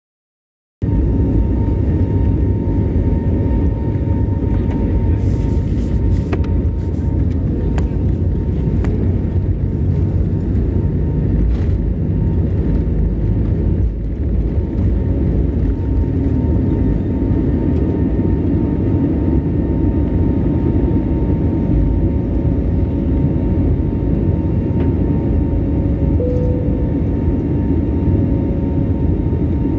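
Jet airliner's turbofan engines at takeoff power heard from inside the cabin through the takeoff roll and liftoff. A loud, steady low roar with a faint steady whine over it, starting a moment in.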